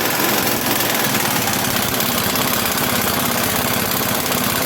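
Impact wrench hammering steadily in a fast, even rattle, loosening the wheel's lug nuts.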